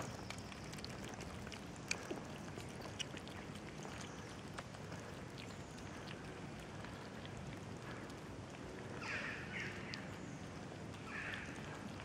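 Kittens and a cat eating from a shared dish: faint, scattered clicks of chewing and lapping. Two brief higher-pitched sounds come about nine and eleven seconds in.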